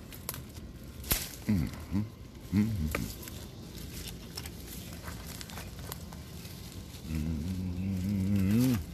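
Low-pitched vocal sounds: two short calls early on, then a long drawn-out one with a wavering pitch that rises at the end, with a few scattered clicks.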